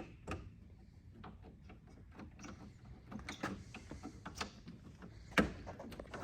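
Scattered light clicks and knocks of switches and the ignition key being worked in an old car, with one sharper knock about five and a half seconds in.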